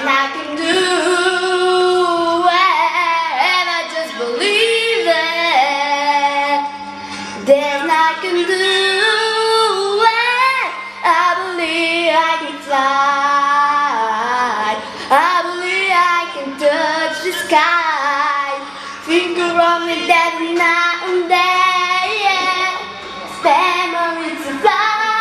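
A young female voice singing a song, the melody running on with only short breaths between phrases.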